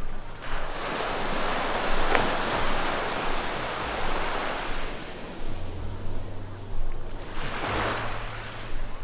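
Sea waves breaking and washing up the beach: one long swell of surf lasting a few seconds, then a shorter wash about seven and a half seconds in.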